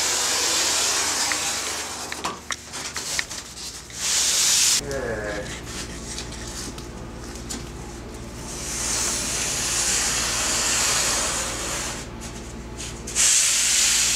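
Pencil tracing a surfboard outline along a template on a foam blank: several long, scratchy, hissing strokes, each lasting from about a second to several seconds, with light clicks and handling knocks between them.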